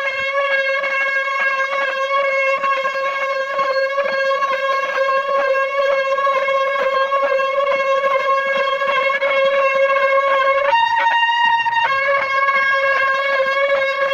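Goat cart's wheel turning on its axle with a loud, continuous squeal, steady in pitch, which jumps higher for about a second near the end. It runs over a constant light rattle of the cart jolting along.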